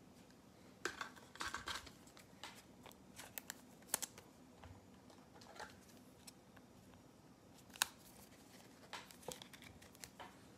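Trading cards being handled and set into clear plastic display stands: scattered light clicks and brief card rustles, with a short flurry about a second in and sharper clicks around four and eight seconds in.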